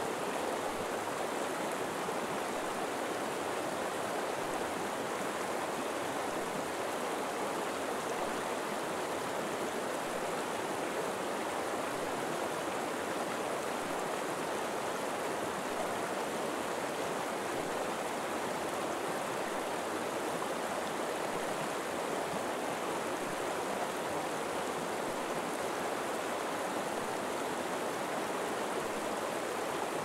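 River flowing steadily through a forest: an even, unbroken rush of moving water.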